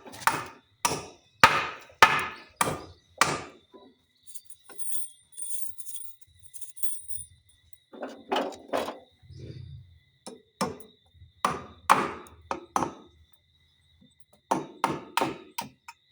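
Hammer driving nails into a wooden 2x4, strikes at about two a second in runs with pauses of a few seconds between them.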